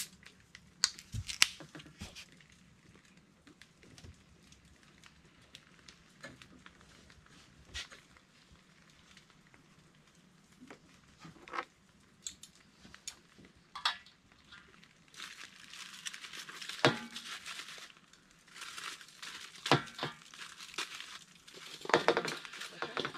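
Fish cooking over high heat in a metal bowl: scattered crackles and clicks, then a denser crackling hiss from about fifteen seconds in, with crinkling and a utensil scraping in the bowl near the end.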